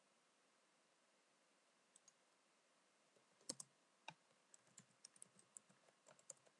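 Faint computer keyboard typing: two soft clicks about two seconds in, then a run of about a dozen separate key clicks through the last three seconds as a word is typed.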